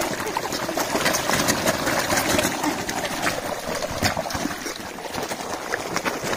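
Dense, continuous splashing and slapping of water from a mass of large fish thrashing at the surface in a feeding frenzy over food thrown onto the water.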